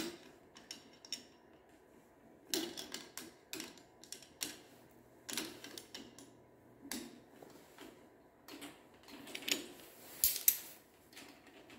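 Short bursts of rapid metallic clicking from hand tools turning the lock nuts on a chain-drive garage door opener's tension bolt, while vise grips hold the chain. The nuts are adjusting the chain's tension.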